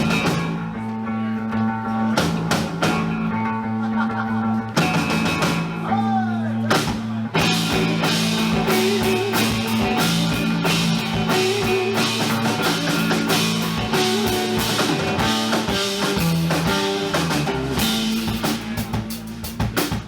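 Live band playing an instrumental passage of a rock song: electric guitar and bass over a drum kit. The drumming gets fuller and busier about seven seconds in.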